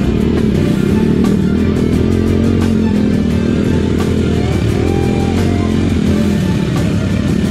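Dirt bike engine running steadily, with scattered sharp clicks and knocks over it.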